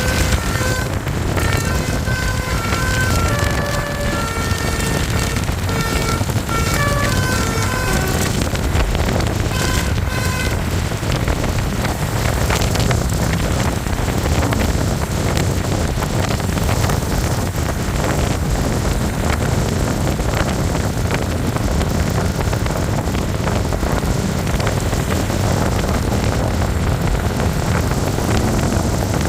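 Basuri multi-tone bus telolet horn playing a quick tune of short stepping notes for about the first ten seconds, then steady vehicle and road noise.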